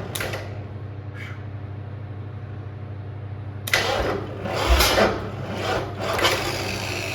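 Ford 351 Cleveland V8 being cranked on its starter for a first start after decades sitting, with a steady hum throughout. Louder uneven bursts come from about halfway in to near the end as it tries to catch.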